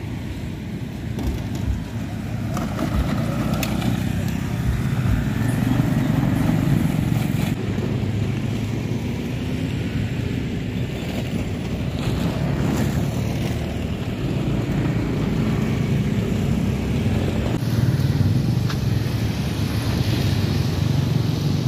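Road traffic, mainly motorcycles and cars, passing along the road at a level crossing as a steady, swelling and fading rumble.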